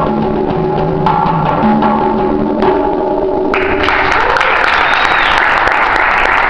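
Congas played with hand strokes over a pitched backing track of held notes. The music ends about three and a half seconds in, and applause takes over.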